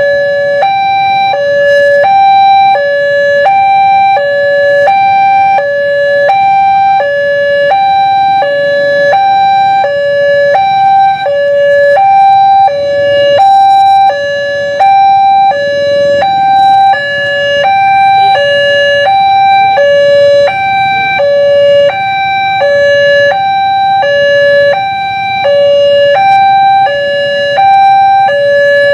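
Railway level-crossing electronic warning alarm sounding its two-tone ding-dong, alternating evenly between a higher and a lower tone, each about half a second long, that warns road users of an approaching train.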